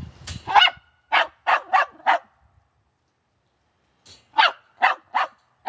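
Dog barking from a wire crate: a quick run of about five sharp barks, a pause of about two seconds, then another run of four.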